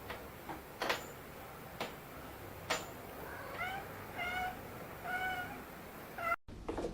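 A cat meowing three times in short calls, each under a second apart. Before the meows come sharp clicks about once a second.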